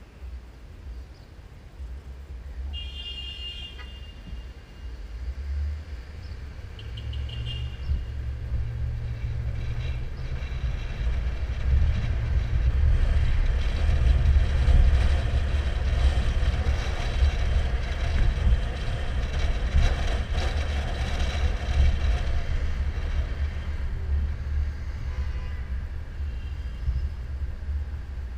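A car driving through city traffic. Low road and wind rumble grows louder from about eight seconds in and eases near the end. Two short high-pitched tones sound a few seconds in.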